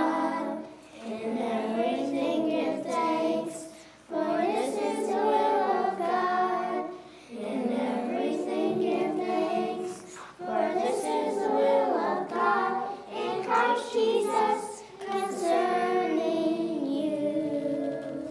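A group of young children singing together, in phrases a few seconds long with short breaks between them; the singing stops near the end.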